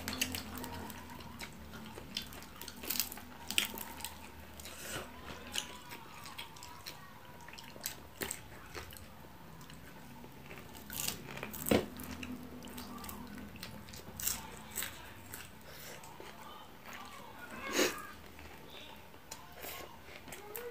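Close-up eating sounds: crunching and chewing of fried fish and fresh vegetables, with many short crackles and clicks and a few louder ones about 12 and 18 seconds in.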